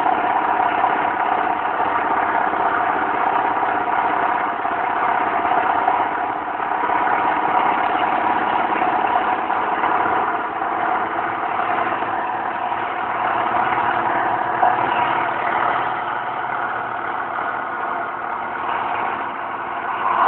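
International Harvester 955 tractor's diesel engine idling steadily.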